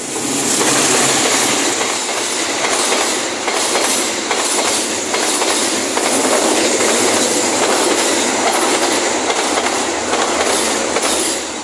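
A train passing at speed close by: a loud rushing roar that swells in just as it begins, stays loud for about eleven seconds with the wheels clacking rhythmically over the rail joints, and fades off at the end.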